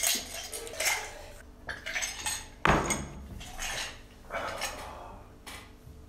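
Glasses and dishes clinking and being set down on a table: a string of short knocks and clatters, the loudest about two and a half seconds in.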